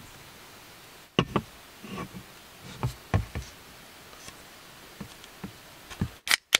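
Irregular knocks and taps, about ten in five seconds, as of objects being handled and set down, over a low steady hiss. The sound cuts out briefly near the end.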